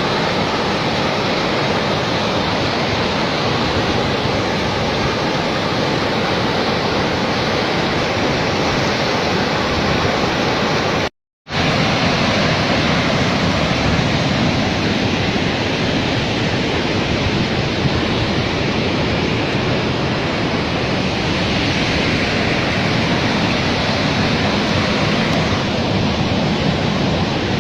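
Steady loud rush of a large Mekong River waterfall's cascading water. The sound cuts out completely for a split second about eleven seconds in.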